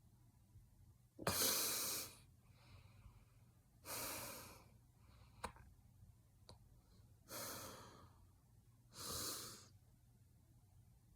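A person hiccuping four times at uneven intervals. Each hiccup is a sudden, breathy burst that fades within a second, and there are two faint short clicks between the second and third.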